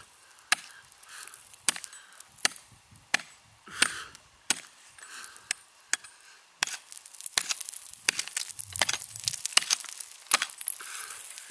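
Hatchet chopping into frozen lake ice: a series of sharp strikes, about one every two-thirds of a second at first, then quicker and more crowded in the second half as chips fly. He is chipping into the ice to gauge how thick it is.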